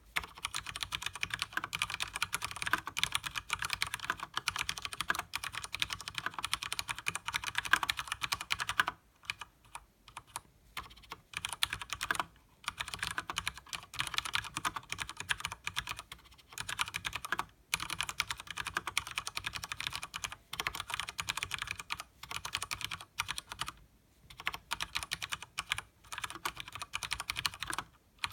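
Typing on a Leopold FC900R mechanical keyboard with Cherry MX Speed Silver linear switches and double-shot PBT keycaps: a fast, dense clatter of keystrokes. It runs unbroken for about nine seconds, then comes in short bursts with brief pauses between them.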